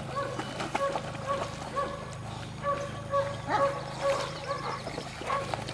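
Dog barking repeatedly in short, same-pitched yaps that come in quick runs, over light splashing water.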